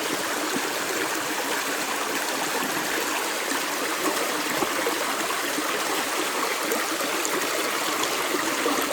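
Stream water running over rocks, a steady rushing flow.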